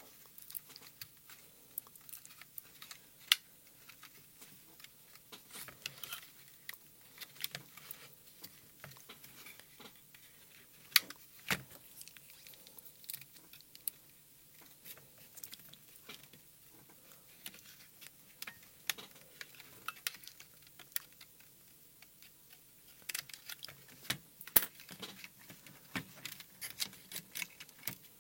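Small plastic parts clicking, tapping and rubbing as an LED ring is pressed into the gimbal housing of an RC radio transmitter, many short sharp clicks at irregular intervals.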